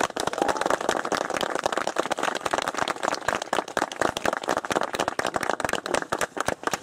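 Audience applauding: many hands clapping at once, fast and irregular.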